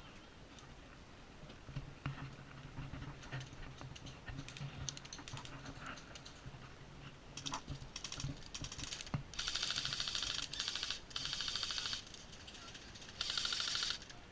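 Airsoft gun firing full-auto: scattered single clicks, then three bursts of very fast, evenly spaced clicking in the second half, the first about a second and a half long and the last two shorter.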